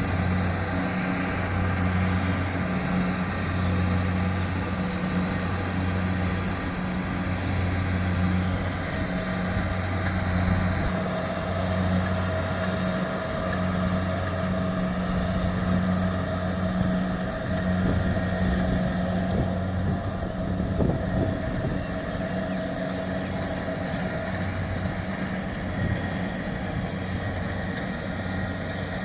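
Kubota DC-70 Plus combine harvester's diesel engine running steadily, its low hum swelling and fading about every two seconds, more strongly in the first half.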